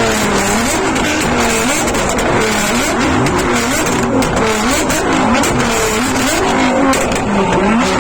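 Nissan GT-R R35's twin-turbo V6 being revved up and down repeatedly, about once a second, with sharp exhaust pops between some of the revs.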